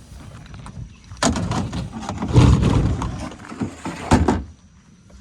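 Kayak hull knocking and scraping over rocks in shallow water, a run of loud bumps and grinding scrapes that starts about a second in and dies away near the end.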